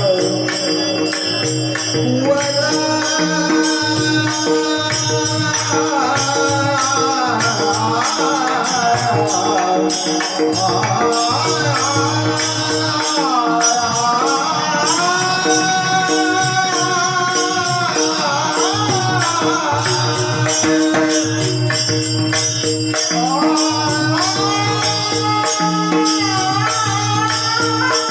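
Marathi devotional bhajan music: a melody line of held and gliding notes over a steady drone, with small hand cymbals keeping a fast, even rhythm and a drum beating underneath.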